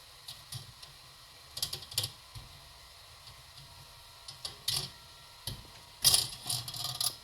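Irregular metallic clicks, taps and scrapes from fork parts and tools being worked by hand while a stuck cup is pulled loose from a scooter fork leg. They come in scattered clusters, the loudest about six seconds in.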